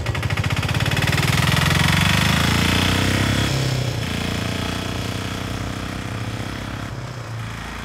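Auto-rickshaw engine running with a rapid putter as it pulls away, loudest in the first few seconds and then slowly fading.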